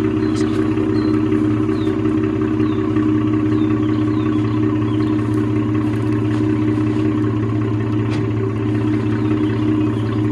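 Ford F150's 2.7-litre twin-turbo EcoBoost V6 idling steadily through a resonator-deleted exhaust with a 5-inch tip, a deeper rumble than the stock pipe.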